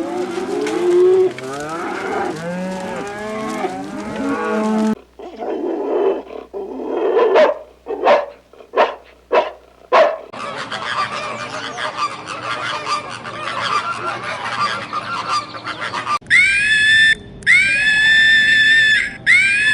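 A sequence of farm animal calls in several separate recordings: a dense chorus of overlapping calls, then a series of short sharp calls, then flock chatter, and from about three-quarters of the way in, repeated long high bleats.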